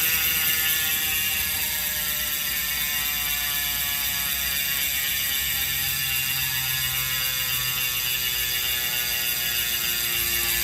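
Roval Rapid CLX rear freehub freewheeling: a steady, dense ratchet buzz as the wheel coasts, its pitch slowly falling as the wheel slows.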